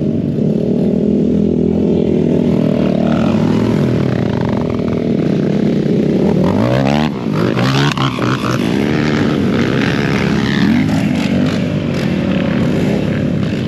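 Racing ATV engines running hard on the course, several machines at once, their pitch sweeping sharply up and down about halfway through as they rev and ease off.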